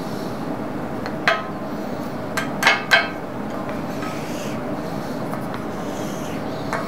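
Plywood workpiece knocked against the scroll saw table to shake the dust off: a sharp tap about a second in, a quick run of three louder taps, and another near the end. Between the taps a wooden scrap scrapes across the table to sweep the sawdust together, over a steady hum.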